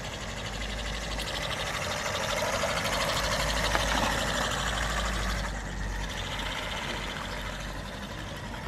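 Rlaarlo XDKJ-006 1/14 RC buggy driving on asphalt, its brushless motor and drivetrain whirring along with tyre noise. It runs at low speed with the throttle limit turned down. The sound swells as the buggy passes close about three to four seconds in, then fades as it moves away.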